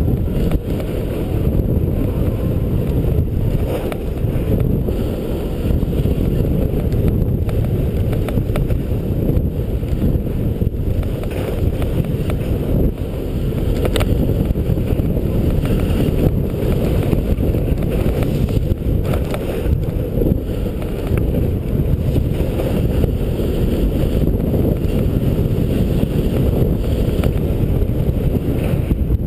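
Wind buffeting an action camera's microphone while skiing downhill, a loud steady low rumble, with the hiss of skis sliding and turning on packed snow.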